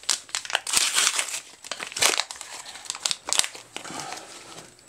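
Plastic wrapper of a trading-card pack crinkling as hands tear it open and slide the cards out, in a run of irregular crackly rustles that die down near the end.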